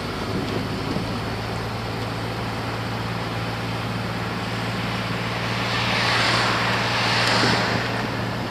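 A motor vehicle engine running steadily with a low hum. A rush of noise swells and fades about six to eight seconds in.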